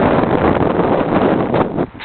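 Wind buffeting a microphone on a moving bicycle: a loud, steady rush that drops away briefly near the end.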